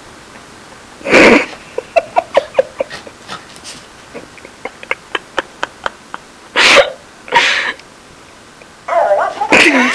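Small dog snorting hard at a Babble Ball toy in loud short blasts, once about a second in and twice near seven seconds, with a run of short sharp clicks in between. A brief warbling sound comes near the end.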